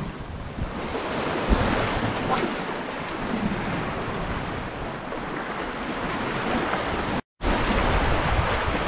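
Sea waves washing and breaking against the boulders of a rock breakwall, with wind buffeting the microphone. There is a low thump about a second and a half in, and the sound cuts out completely for a moment about seven seconds in.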